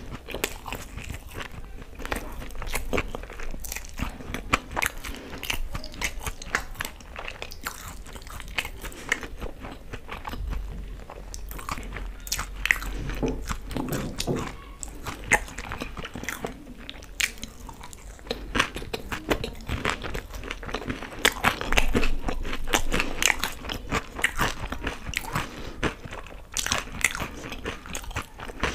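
Close-miked chewing and crunching of fried pakodas in green chutney, with many small irregular clicks and smacks of the mouth.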